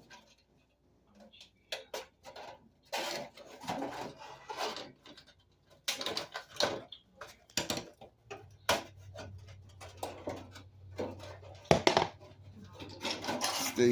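Pliers gripping and prying staples out of a register vent: scattered sharp metal clicks and scrapes. A low steady hum sets in about halfway through.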